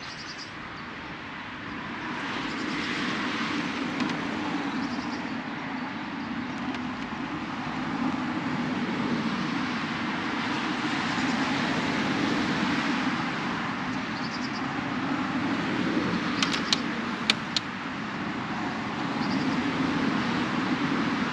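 Wind gusting across open water, a steady rushing that swells and eases every few seconds, with a few faint high bird chirps. Three or four sharp clicks come close together a few seconds before the end.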